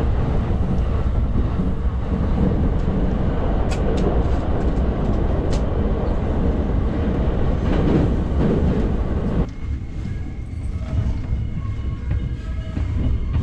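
Commuter train running, heard from inside the carriage: a loud, steady rumble of wheels on the rails, with a few sharp clicks. About nine and a half seconds in, it drops abruptly to a quieter hum.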